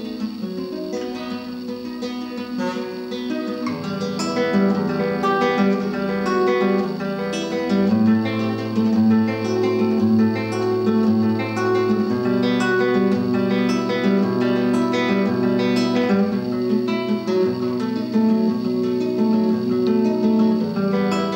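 Acoustic guitar music with plucked notes running continuously. A fuller lower part comes in about four seconds in, and a low bass line joins about eight seconds in.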